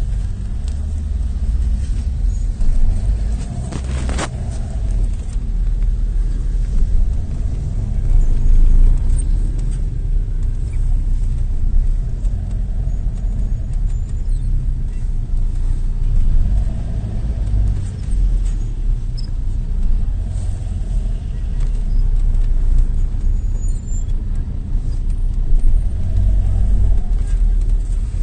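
Car heard from inside its cabin while driving: a steady low rumble of engine and road noise, with a single sharp click about four seconds in.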